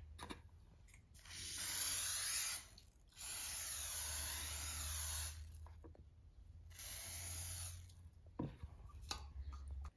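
Aerosol cooking spray hissing in three bursts of one to two seconds each, greasing a plastic jelly mould so the set pudding will release easily. A couple of light knocks follow near the end.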